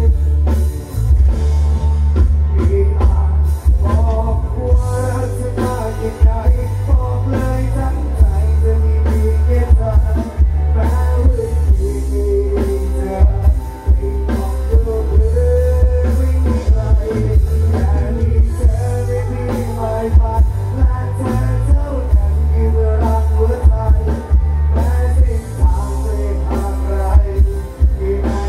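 Live band on a band truck's stage playing a song through big PA speakers: a singer over electric guitar, keyboard and drum kit, with very heavy bass and steady drum beats.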